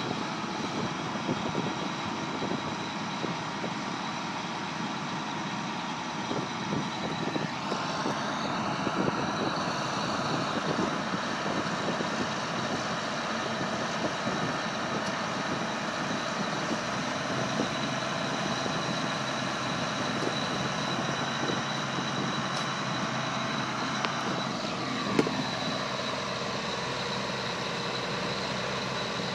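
Heavy diesel engines of a Kenworth T800 semi and a farm tractor running together as a high-dump forage wagon unloads chopped ryegrass into the truck's silage trailer. The engine revs rise about a quarter of the way in and drop near the end, and there is a single sharp knock shortly after the drop begins.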